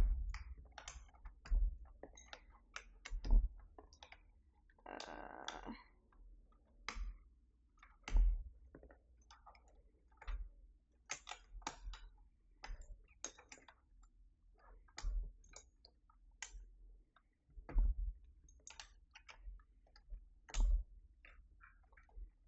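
Keycaps being pulled and swapped on a Keychron V6 Max mechanical keyboard: irregular light plastic clicks and a few soft knocks.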